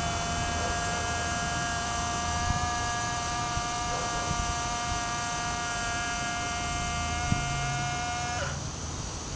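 Small electric motor of a model overhead crane's hoist whining steadily as it lifts a barrel. About a second before the end the whine drops a little in pitch and cuts off.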